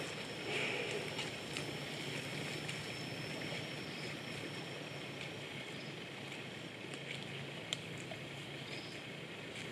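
Steady outdoor background noise: a continuous high-pitched thin tone over a low steady hum, with a few faint clicks.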